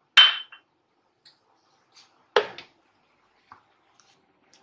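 Handling knocks and clicks: two sharp knocks about two seconds apart, the first the loudest with a brief ring, and a few faint ticks between.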